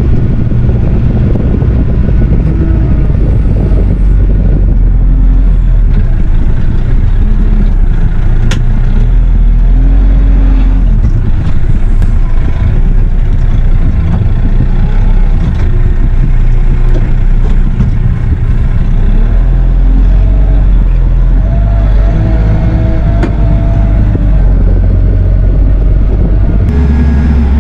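Kioti RX7320 tractor's diesel engine running steadily under way, heard from inside the cab, loud and mostly low rumble.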